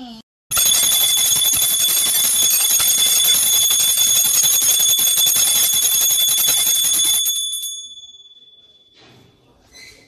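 Brass puja hand bell rung rapidly and continuously, starting suddenly about half a second in. After about seven seconds it stops and rings out briefly.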